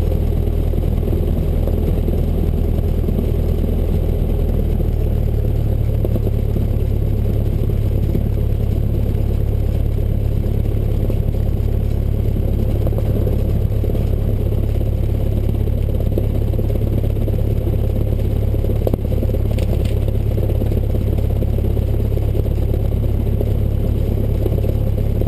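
A Cessna 172's piston engine and propeller running steadily at taxi power, heard from inside the cabin. The engine note shifts slightly about five seconds in.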